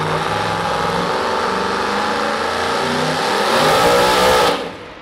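Modified two-wheel-drive pulling truck's engine at full throttle hauling the sled, its note climbing higher near the end, then dropping away suddenly about four and a half seconds in.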